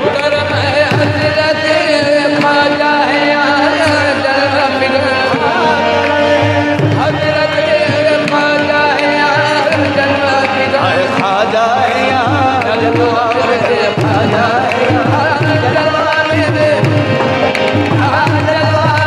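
Qawwali music: harmoniums and tabla with hand-drum accompaniment, handclapping and a lead voice singing with wavering melodic runs.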